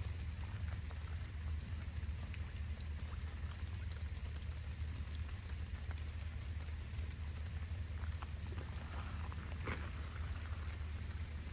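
Storm runoff rushing and trickling through a drainage pipe and the crushed stone around it, a steady low rush with scattered small drips and splashes.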